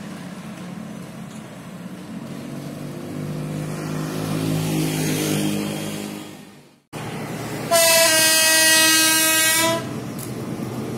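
Diesel locomotive horn sounding one steady blast of about two seconds, roughly two-thirds of the way in. Before it, a steady engine hum grows louder and then fades out to silence.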